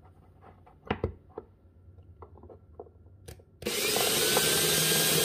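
A few light handling clicks, then about two-thirds of the way in a Ridgid 18-volt cordless drill/driver starts and runs steadily, drilling a shallow pilot hole up into the wooden bottom of a cabinet for an LED puck light's mounting screws.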